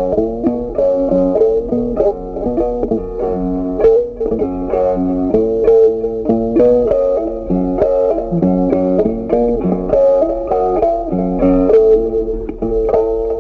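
Background music: a plucked guitar playing a melody, note after note at a steady pace.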